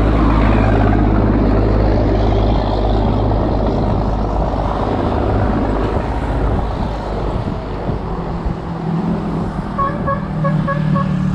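Road traffic: a heavy vehicle's engine drones close by, fading out about halfway through. Near the end a horn sounds a run of about five quick short beeps over another engine.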